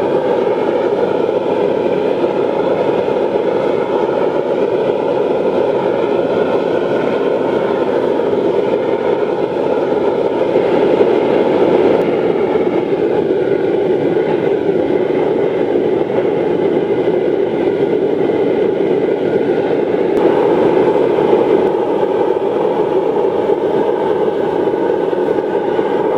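Forced-air waste-oil burner firing into a dirt furnace: a steady, loud rush of blower air and flame, with a slight change in tone about halfway through.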